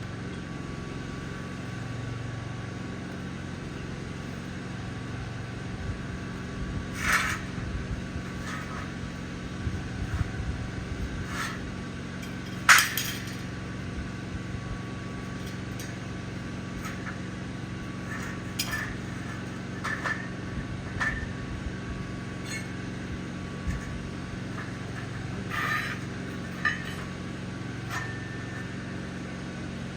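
Irregular metallic clinks and knocks, like steel pieces being handled and tapped during fabrication work, the sharpest about halfway through, over a steady low machine hum.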